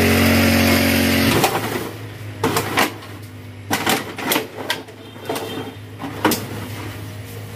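A steady motor hum for about the first second and a half, which cuts off abruptly. Then a run of separate sharp crackles and rustles from plastic sacks and weeds being prodded and moved with a tool.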